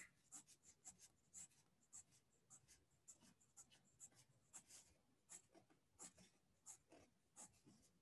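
Coloured pencil scratching on paper in short, faint, regular strokes, about three a second, as lines are hatched in.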